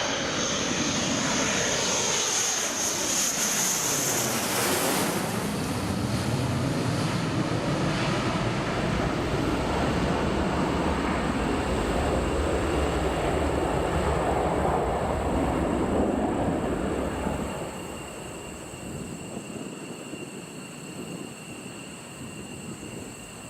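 F-15 fighter jet passing low overhead on landing approach: a loud jet roar with a high whine, its pitch falling as it passes. The roar fades away about three quarters of the way through.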